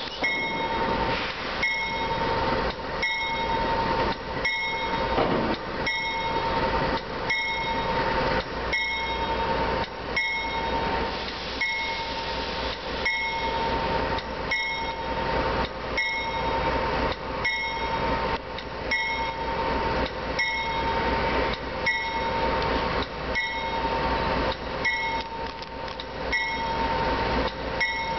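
Diesel locomotive bell ringing steadily at about one and a half strikes a second, over the low rumble of the locomotive as it slowly approaches.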